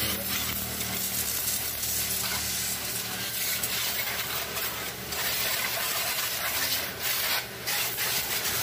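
Water spraying onto a vehicle being washed: a steady hiss, with a low hum underneath.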